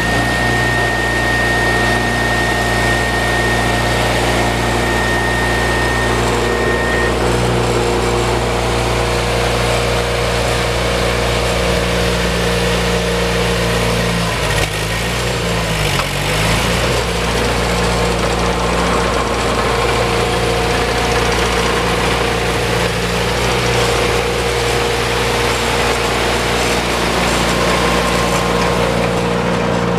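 Small Onan Performer 16XSL engine on a weigh wagon, running steadily at a constant speed; its note wavers briefly about halfway through.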